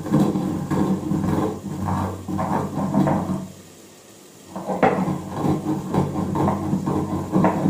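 Stone roller (batta) rubbed and pressed over a sil grinding stone, crushing whole spice seeds coarsely: a run of gritty strokes, about two or three a second, that stops for about a second near the middle and then starts again.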